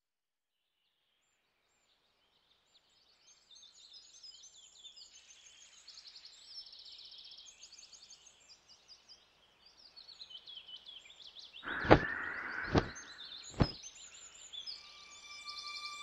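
Birdsong fading in about three seconds in: many small birds chirping and trilling. Near the end come three sharp knocks about a second apart, the first the loudest.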